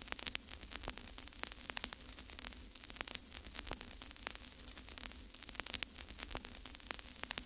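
Faint crackling static: irregular clicks and pops over a steady hiss and low hum.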